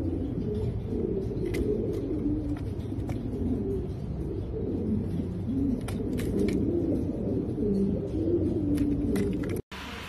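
Domestic homer pigeons cooing over and over in a low, warbling rumble, with a few faint clicks. The sound cuts off abruptly near the end.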